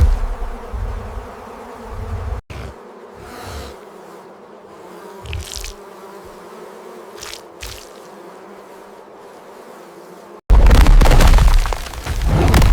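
Buzzing of a huge bee swarm, a steady drone with a few brief swishes. About ten seconds in it cuts to a sudden loud, deep rumbling din.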